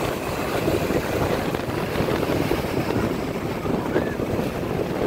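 Ocean surf breaking and washing up the shore in a steady rush, with wind buffeting the microphone.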